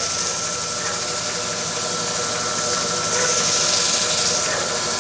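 400-grit sandpaper held against a spinning wooden workpiece on a lathe, giving a steady sanding hiss over the lathe's running hum.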